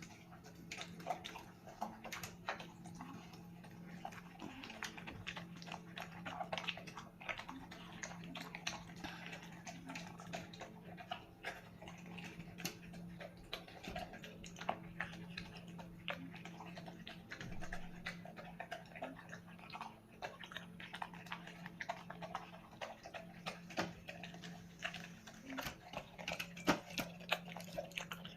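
A dog eating soft homemade food, chewing with many irregular little clicks and smacks throughout, over a steady low hum.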